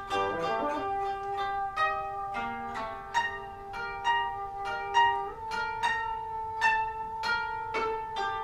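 Twenty-string koto (nijūgen) plucked in a steady run of notes, each one ringing out, over a bassoon holding long notes that step up in pitch about five seconds in.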